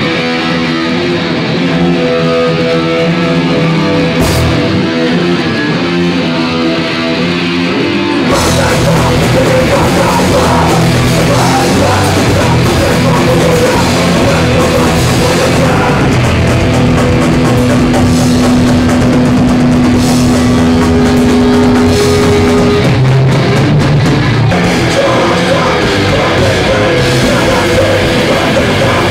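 Live crust-punk band playing its opening song: about eight seconds of guitar without drums, then the full band with drums crashes in, with a shouted vocal over fast, distorted guitars.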